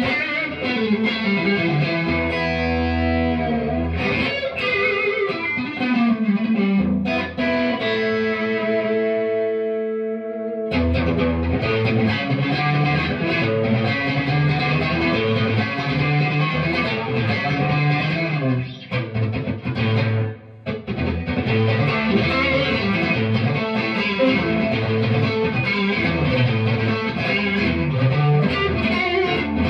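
Overdriven electric guitar playing chords and riffs through a Love Pedals overdrive into a Mesa Boogie Nomad valve amp. A few held notes ring out shortly before ten seconds in, and there is a brief drop near twenty seconds before the playing picks up again.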